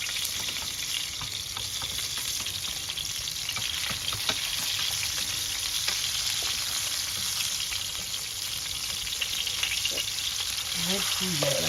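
Fish frying in hot oil, a steady sizzle with scattered sharp pops and crackles of spattering oil.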